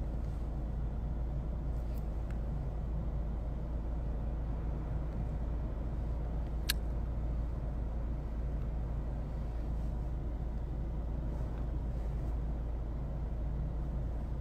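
Steady low background rumble and hum with no clear source, broken once by a faint click about seven seconds in.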